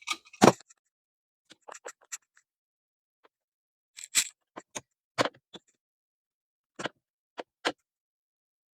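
Scattered clicks and light scrapes of hand tools working on electrical wire, with sharper clicks about half a second, four and five seconds in.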